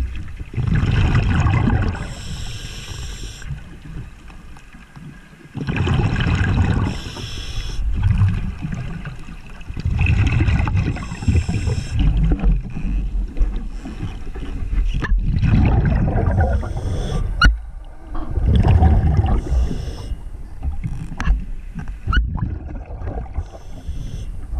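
Underwater water noise picked up by a submerged camera: low rumbling and gurgling that swells about every four to five seconds, with a few sharp clicks near the middle.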